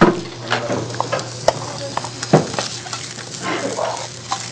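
Food sizzling in a frying pan on the stovetop while a utensil stirs and scrapes it, with scattered clinks of dishes and a heavier knock about two seconds in.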